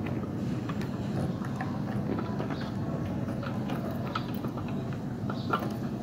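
Budgerigar pecking at a piece of raw pumpkin in a saucer: irregular small beak taps and clicks, over a steady low background rumble.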